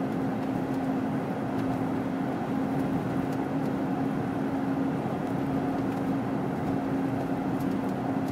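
A road vehicle driving at steady speed: an even wash of engine and road noise with a steady hum, and a few faint ticks.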